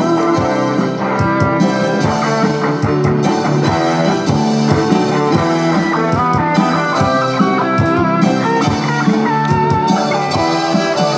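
Live band playing an instrumental passage over amplifiers: electric guitar, bass guitar, electronic keyboard and drum kit.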